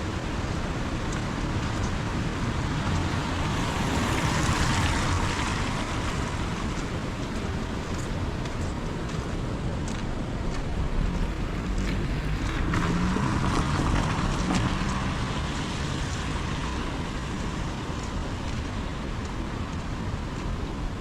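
Heavy rain falling steadily, with scattered drops ticking and a low rumble underneath. The hiss swells twice, about four seconds in and again around twelve seconds.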